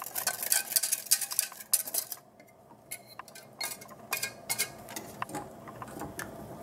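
Metal clinking and scraping of a wire whisk and utensils against stainless steel saucepans as milk is poured from one pan into the other and stirred. The clinks come thick for the first two seconds, then thin out to scattered taps.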